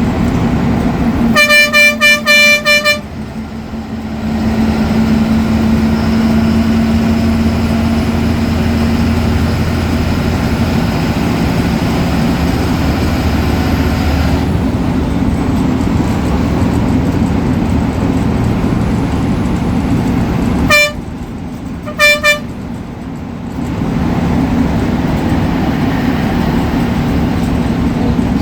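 Ashok Leyland BS4 bus diesel engine running under way. About a second and a half in, the horn sounds in a rapid string of blasts; two short horn toots follow about three quarters of the way through. A faint high turbo whistle sits over the engine for about ten seconds after the first blasts, and the engine note drops briefly after each set of horn blasts.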